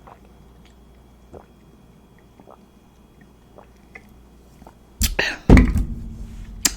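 Close-miked wet mouth sounds of eating. First a few faint, soft clicks, then from about five seconds in a loud run of wet chewing noises that ends on a sharp click.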